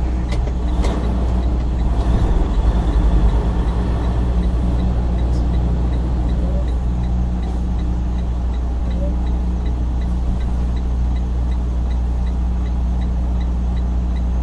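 Semi-truck's diesel engine running with a steady low hum, heard inside the cab. From about four seconds in, a light steady ticking comes about twice a second.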